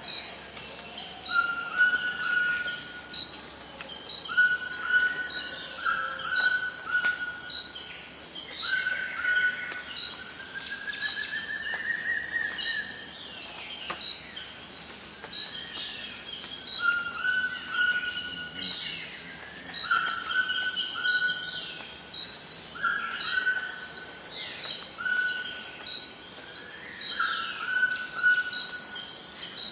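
Rainforest ambience: insects drone steadily at a high pitch while a toucan repeats a short call every second or two, with a rising, rattling call about ten seconds in.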